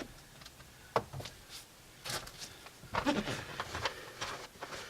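A few scattered light knocks and clicks, about a second apart, from parts being handled.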